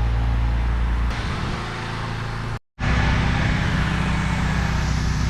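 Pressure washer's gas engine running steadily, with a brief cut in the sound near the middle.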